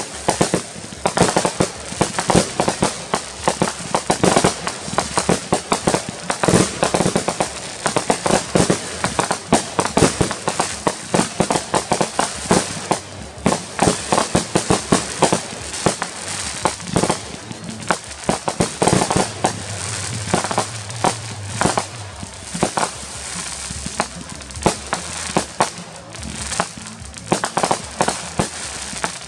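Consumer aerial fireworks going off in a dense, continuous barrage: many sharp bangs a second from launches and shell bursts, with crackling.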